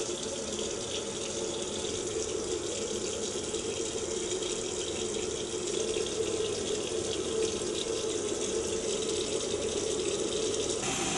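Water running steadily from a bathroom tap into the sink.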